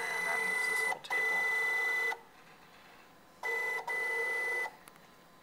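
Stepper motor driving a lead screw on a home-built CNC machine, whining at a steady pitch as it moves an axis: it runs for about two seconds with a brief break, stops, then runs again for over a second and stops.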